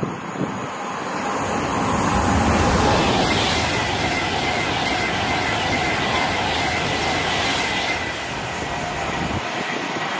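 Class 390 Pendolino electric express passing through at full speed without stopping. Its noise swells about a second in, is loudest around two to three seconds, and carries a steady high whine before falling away about eight seconds in.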